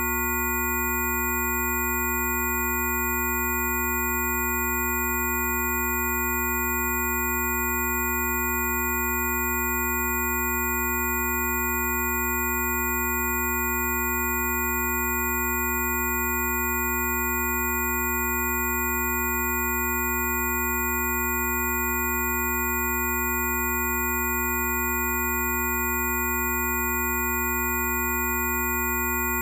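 Several steady electronic sine tones sounding together, low and high pitches layered into one unchanging chord-like drone: generated Rife frequency tones.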